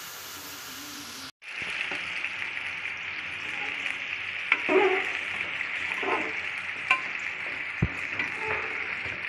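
Grated carrots frying in desi ghee in a steel pot, a steady sizzle with a metal spatula scraping and knocking against the pot as they are stirred: the bhuna stage, after the carrots' water has cooked off. The sound cuts out for a moment about a second in.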